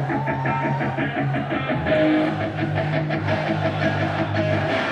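Loud rock music led by electric guitar, playing at a steady beat.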